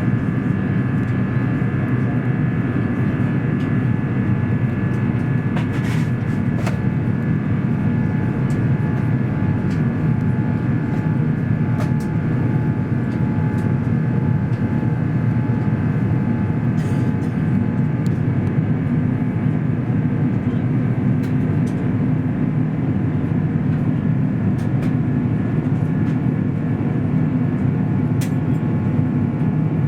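Airbus A350 cabin noise heard beside the wing, with the Rolls-Royce Trent XWB engines running steadily under power: an even low rush with a few steady whining tones above it. A few faint clicks come and go.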